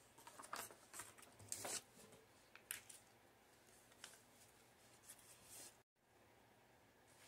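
Faint rustling and crinkling of scorched paper cutouts being handled and laid down, with a few crisp rustles in the first couple of seconds and only scattered light ones after.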